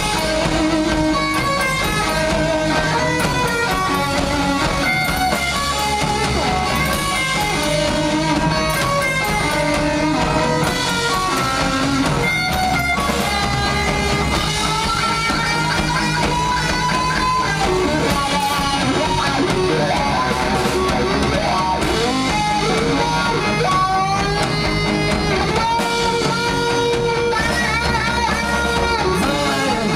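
Live rock band playing an instrumental passage with no vocals: electric guitars, bass and drums, loud and steady. Over it runs a lead guitar line with bent notes.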